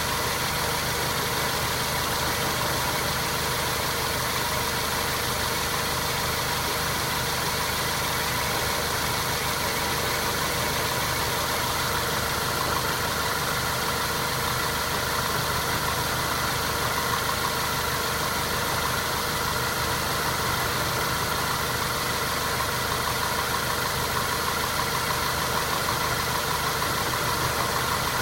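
Mazda 3 with an automatic transmission running steadily, with a knock from the gearbox. The owner hears this knock on overrun, and it goes away when the throttle is pressed.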